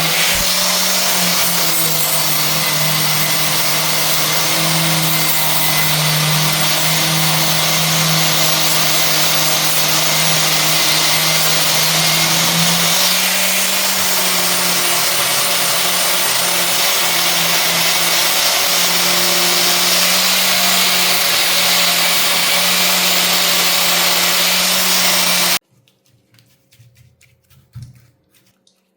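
Electric power tool running steadily under load. Its pitch rises slightly about halfway through, then it cuts off abruptly near the end, followed by a few faint clinks.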